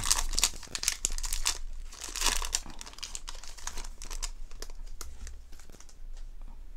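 Pokémon booster pack's foil wrapper crinkling as it is torn open, in three loud crackling bursts over the first three seconds. After that come fainter crinkles as the cards are slid out of the wrapper.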